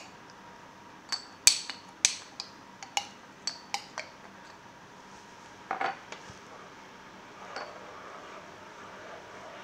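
Metal spoon scraping and clinking against the inside of a glass sauce jar: about eight sharp clinks in the first four seconds, then a longer, louder scrape a little before six seconds. Near the end comes a softer swish as the spoon stirs the broth in the pot.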